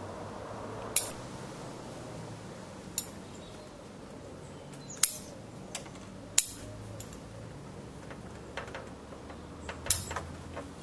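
Bonsai scissors snipping dead twigs out of a Japanese white pine: a series of sharp, short snips at uneven intervals, about ten in all, the loudest near the middle and near the end.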